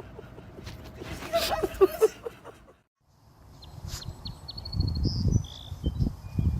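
Birds chirping in short high calls and whistles, over low rumbling and repeated soft thuds. A moment of silence about three seconds in comes before the chirping starts.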